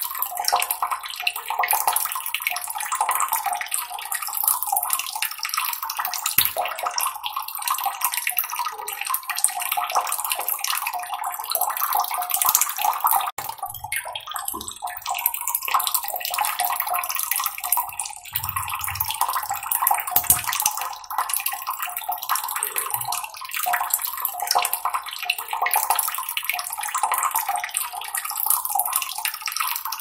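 Steady trickling, splashing water: a dense hiss with almost nothing low, dipping briefly about halfway through.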